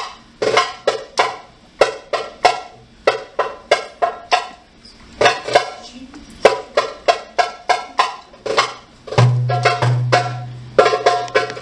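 Egyptian tabla (darbuka goblet drum) played solo in an improvised drum solo: a quick run of sharp, dry rim strokes, sparser around the middle. About nine seconds in, deep ringing bass strokes (dums) join the strikes.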